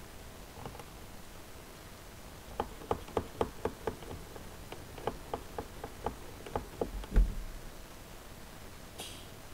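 Hard plastic Lego parts clicking and tapping as they are handled on a Lego brick machine: an irregular run of about twenty sharp clicks, ending in a heavier thump. Near the end, a short sharp sniff.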